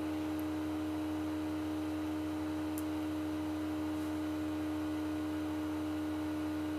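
Steady electrical hum with a clear pitched tone, unchanging throughout, with two or three very faint ticks.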